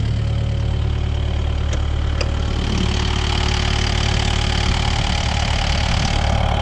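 Kubota compact excavator's diesel engine idling steadily, with a couple of light clicks about two seconds in.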